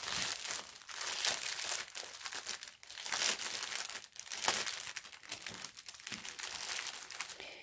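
Clear plastic packaging crinkling and rustling in irregular bouts as a pouch of small zip-lock sachets of diamond-painting drills is handled and opened.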